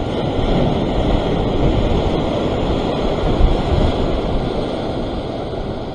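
Ocean surf breaking and washing over a rock ledge in a steady rush, with wind buffeting the microphone.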